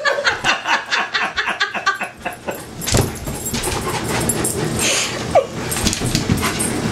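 Dogs' claws clicking and skittering rapidly on a hardwood floor as they scramble after a laser dot, for about the first two seconds, then a single sharp knock about three seconds in.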